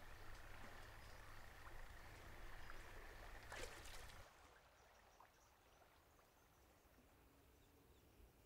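Faint outdoor ambience with a steady, thin, high-pitched tone, and a single sharp click about three and a half seconds in. The sound then drops away to a quieter hush.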